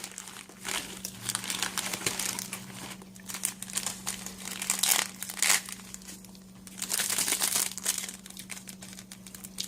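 Plastic ramen-snack wrapper crinkling and rustling in irregular bursts as the dried Ppushu Ppushu noodle block inside is broken up by hand, with a faint steady hum underneath.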